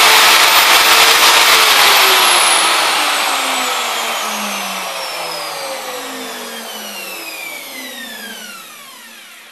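Kalibr FE-1700/12M+ hand router's electric motor running at maximum speed with a high whine, switched off about one and a half seconds in and coasting down, its whine falling steadily in pitch and fading.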